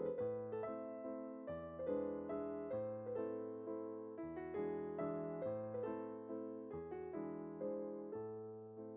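Background piano music: gentle notes in a steady rhythm over a slowly changing bass line.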